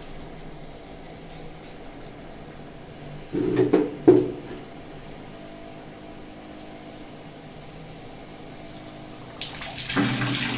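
Water being let into a Samraksha instant electric geyser from the tap and running through it and its hoses, with a steady hiss, two loud surges about three and a half and four seconds in, and a louder rush of water starting near the end as water reaches the outlet.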